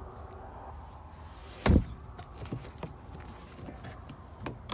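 One dull thump about two seconds in, with a few light clicks and knocks from the rear-seat fittings of a car's cabin being handled, over a low steady hum.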